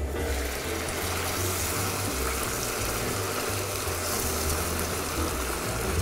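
Rabbit pieces in broth simmering hard and sizzling in a pan over a raised gas flame, a steady hiss as the sauce reduces; it comes up at the start as the lid is lifted off.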